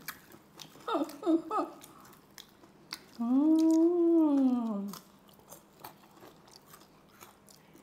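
Mouth noises of eating crispy pata (deep-fried pork knuckle): chewing with small crunchy clicks. A few words are spoken about a second in, and about three seconds in a voice holds one long note for nearly two seconds, rising then falling in pitch.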